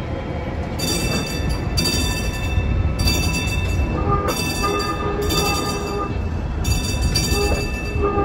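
Streetcar running through a tight curve. Its low rumble goes on steadily, and from about a second in high-pitched wheel squeal comes in repeated stretches of about a second each.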